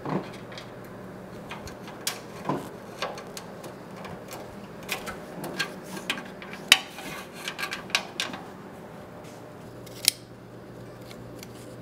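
Irregular light metal clicks and knocks from gloved hands fitting parts to a truck's front end and working a metal latch mechanism. The sharpest clicks come about seven and ten seconds in.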